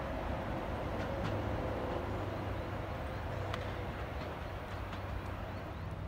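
Sydney Trains OSCAR electric multiple unit pulling away, its steady running noise and a faint whine fading out about halfway through as it recedes, with a few faint clicks.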